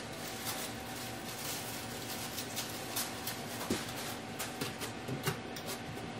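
Party decorations being handled by hand: scattered light clicks, rustles and a few soft knocks as a paper pom-pom and balloons are adjusted on a sequin backdrop, over a steady room hiss with a faint hum.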